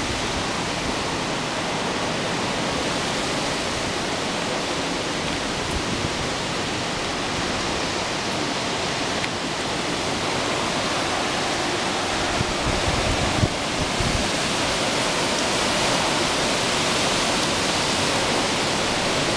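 Hurricane-force wind blowing hard and steadily, a dense rushing noise that swells slightly in the second half. A few low thumps of gusts buffeting the microphone come about two-thirds of the way through.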